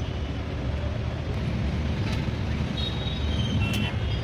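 Heavy rain pouring in a storm: a steady rushing noise with a deep rumble underneath. A few sharp ticks and short high thin tones come in the second half.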